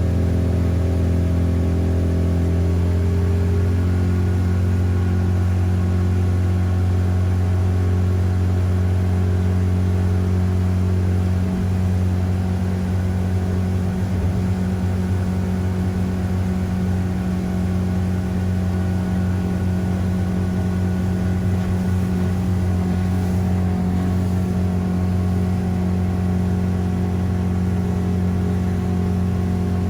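Boat engine running steadily, a loud low even hum; it eases slightly about twelve seconds in.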